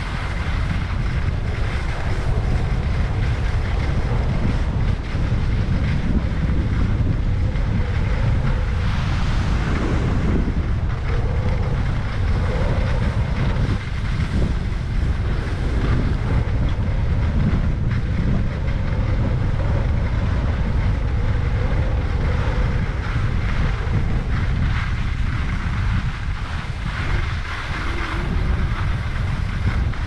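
Steady wind buffeting the helmet-mounted GoPro 8's microphone during a downhill ski run, with the continuous hiss of skis sliding over snow beneath it.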